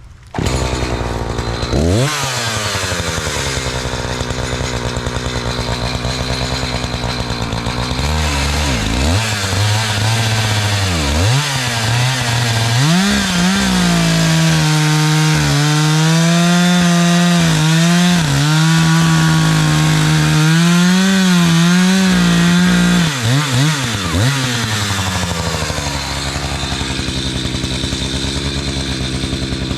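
Gas chainsaw running: a quick rev, a spell at low speed, then opened up to full throttle for about ten seconds, its pitch dipping slightly under load as it cuts through a rotten oak log, before dropping back to idle near the end.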